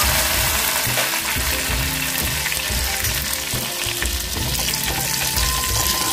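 Fresh curry leaves sizzling steadily in hot oil and ghee, frying with garlic, cumin and mustard seeds in a small pan: a tadka (tempering) cooking.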